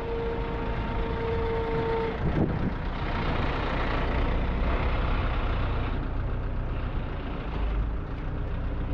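Heavy truck engine running, with a steady whine over it that stops about two seconds in and a brief falling tone just after.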